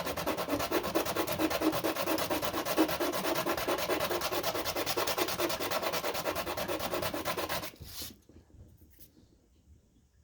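Rapid back-and-forth strokes of a hand tool rubbing or abrading a workpiece, several strokes a second and even in rhythm. They stop abruptly about eight seconds in.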